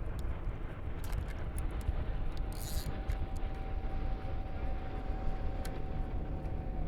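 A motorboat's engine running as the boat passes close by, a steady low rumble with a thin steady whine through most of it.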